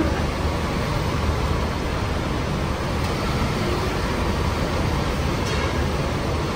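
Coach bus engines running steadily with a low rumble as a bus creeps forward across the yard.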